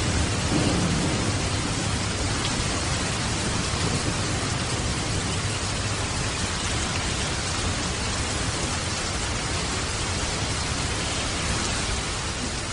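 Waterfall and light rain: a steady, even rush of falling water, with a low rumble in the first second or so.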